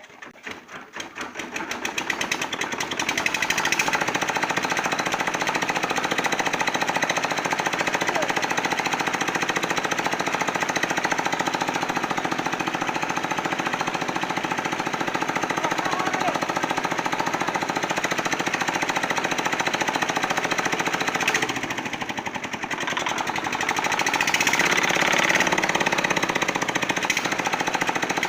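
Small diesel engine of a mini concrete mixer catching and running up to speed in the first few seconds, its beat quickening, then running steadily with a rapid knocking beat. It drops back briefly about 21 seconds in and picks up again.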